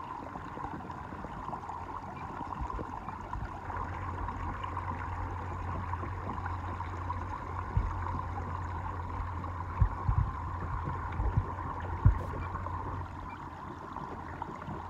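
Haswing 12-volt, 55-pound-thrust bow-mount electric trolling motor running steadily, pushing a kayak, with a steady whine and water rushing along the hull. A few low thumps come about 8, 10 and 12 seconds in, the last the loudest.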